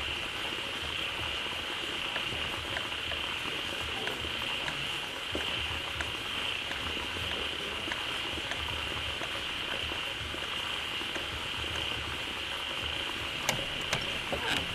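Dense chorus of pond frogs calling together, a continuous high-pitched trilling, over the sound of running water, with a few sharper clicks near the end.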